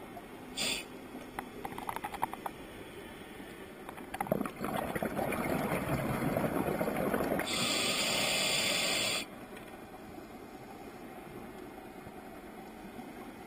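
Scuba regulator breathing underwater, heard through a GoPro housing: a rumble of exhaled bubbles for about three seconds, then a sharp hiss of inhaled air for under two seconds that cuts off suddenly. A short hiss and a few faint clicks come just before.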